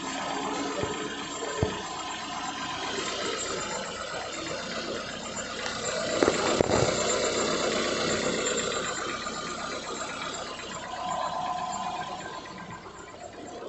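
Ford EcoSport 1.6 four-cylinder engine running steadily after a start, with a louder stretch about six seconds in. No grinding from the starter motor, whose sticking pinion has been cleaned and regreased.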